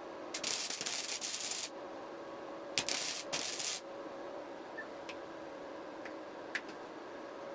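Sandpaper rubbing on wood in three strokes: one longer stroke of about a second, then two short ones close together about three seconds in, followed by a few light clicks.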